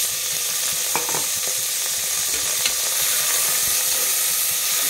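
Sliced small onions and green chillies sizzling in hot sesame oil in an aluminium pressure cooker, with a steady frying hiss. A steel spoon stirs them, scraping and clinking against the pot a few times.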